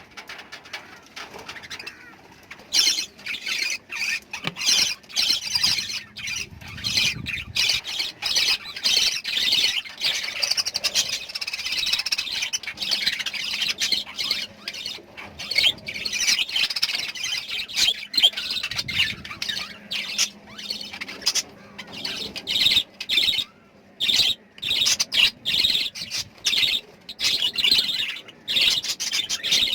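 A flock of small pet parrots chattering, with rapid high-pitched chirps and squawks overlapping without pause from about three seconds in.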